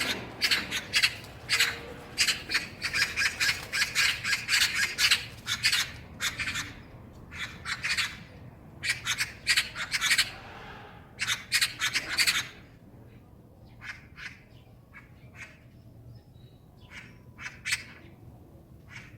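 Magpies chattering: rapid runs of harsh, rasping 'kak-kak-kak' calls, dense and loud for about the first twelve seconds, then fewer and fainter single calls.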